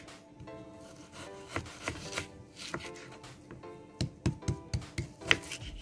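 Kitchen knife chopping raw chicken into small pieces on a wooden cutting board: irregular knocks of the blade hitting the board, coming faster and louder in the second half, with background music.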